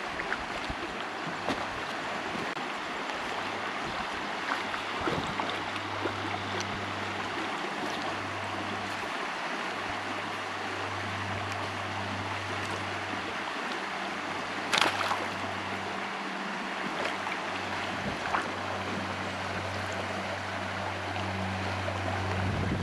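Steady rush of river water flowing over a stony bed, with a single sharp click about fifteen seconds in.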